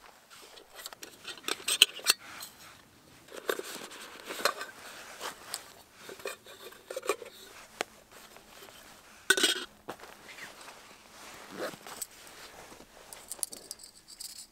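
Camping cook kit being unpacked and set out: rustling of stuff sacks with clinks and knocks of a metal camping pan and stove, and a louder clatter about nine seconds in.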